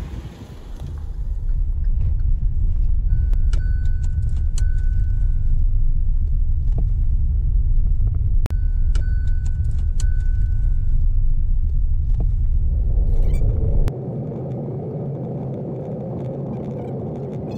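Hyundai hatchback driving along a rough dirt track, heard from inside the cabin: a heavy, steady low rumble of tyres and engine. About fourteen seconds in, the deep rumble drops away, leaving a quieter, higher hum.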